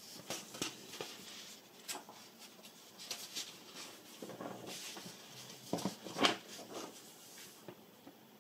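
Paper rustling as a plastic model kit's instruction booklet is handled and opened to a new page: short irregular crackles, loudest about six seconds in.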